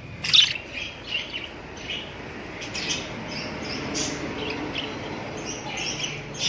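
Pet cockatiels and other small parrots chirping: a steady run of short, overlapping chirps, the loudest about half a second in.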